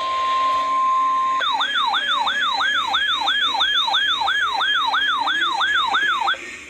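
NOAA Weather Radio's steady 1050 Hz warning alarm tone, which cuts off about a second and a half in. A loud electronic siren-like alert follows, sweeping up and down about two and a half times a second, and stops shortly before the end.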